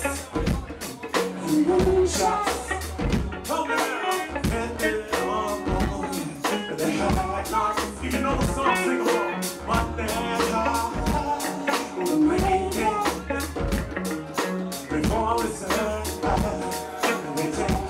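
Live band playing an upbeat groove: drum kit and hand drum keeping a steady beat of about four hits a second under electric guitar and keyboards, with a melody line over the top.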